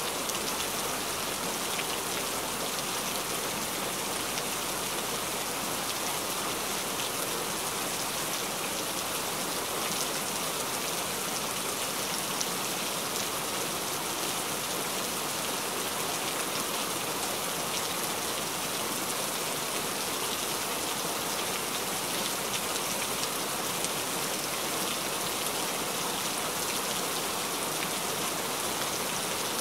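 Steady rain falling: an even, dense hiss with a fine patter of individual drops.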